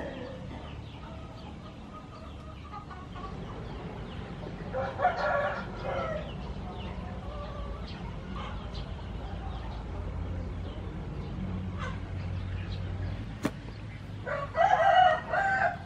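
A rooster crowing twice: once about five seconds in and again near the end, each call lasting about a second.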